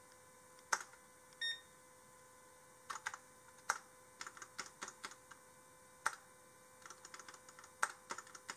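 Computer keyboard keys pressed in ones and short quick runs, irregular clicks, with one short electronic beep about one and a half seconds in. A faint steady tone hums underneath.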